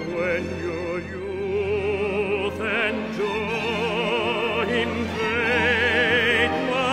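Background music in an operatic style: long held notes with wide vibrato over an orchestral backing, building in loudness.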